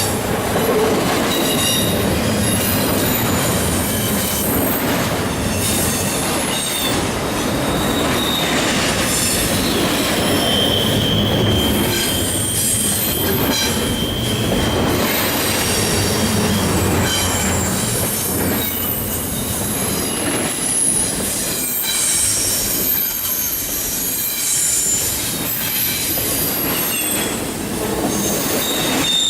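CSX freight train cars rolling past with a continuous rolling noise, wheels squealing in thin high tones that come and go, loudest a little under halfway through.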